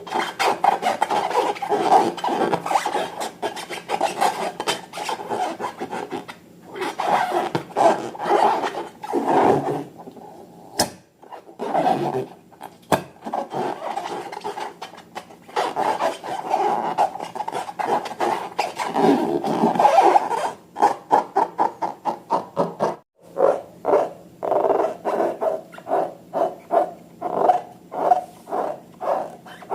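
Hands working balloons and slime, making a rasping, rubbery rubbing and squishing. From about two-thirds of the way in it turns into a run of separate squeezes, about two a second.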